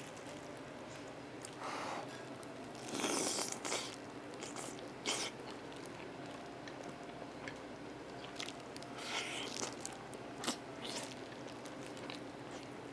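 Close-miked eating: biting and chewing tender chicken drumstick meat soaked in spicy broth, with scattered wet mouth sounds and small clicks. A louder run of bites comes about three seconds in.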